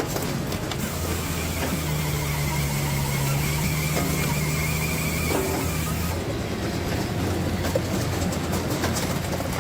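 Hydraulic log-splitting machine running with a steady mechanical hum and scattered clicks and knocks. The hum strengthens, with a faint high whine, from about two seconds in until about six seconds in.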